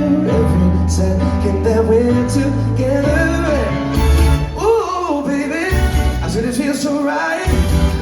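Live band music with a male singer's wordless vocal runs over a strong bass line.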